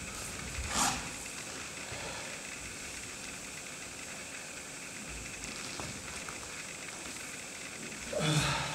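Steady hiss with faint scuffs and brushes of bare-footed dancers' hands and bodies moving on a stage floor, and a short voice-like sound, a breath or vocal noise from a dancer, near the end.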